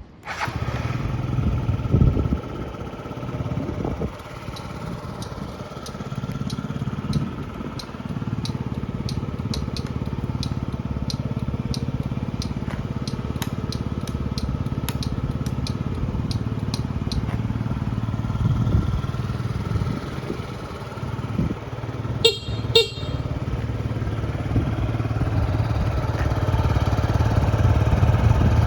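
Yamaha Jog SA36J scooter's 49 cc four-stroke engine starting and idling, with a brief blip of revs about two seconds in. A regular ticking of about two a second, the turn-signal flasher, runs through the middle, and the horn beeps twice near the end.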